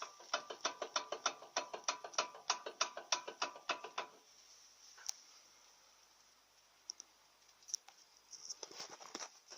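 Lada Kalina front brake caliper knocking: a rapid run of sharp metallic knocks, about five a second, for roughly four seconds, then a few single knocks and a short cluster near the end. The owner puts the knock down to the caliper guide pins, though it sounds much like a worn-out ball joint; it comes on a smooth road when coasting off the throttle and seems to go away when the brake is pressed.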